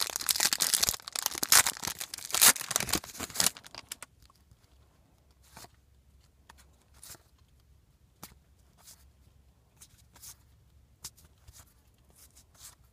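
A 2015 Score football card pack's wrapper being torn open and crinkled for the first three to four seconds, then only faint occasional clicks as the cards are handled.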